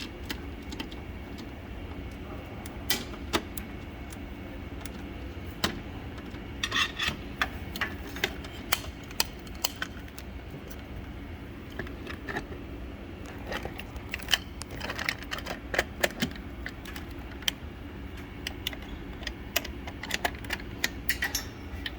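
Scattered metallic clicks, clinks and rattles of a lamp assembly being handled and fitted back into a Christie Roadster projector, over a steady low hum.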